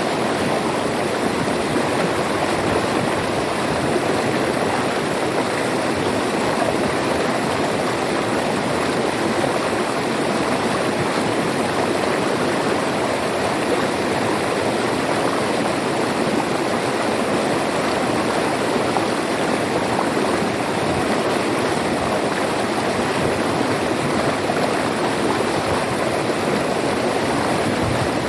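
River water flowing and rushing over rocks, a steady even rush with no let-up.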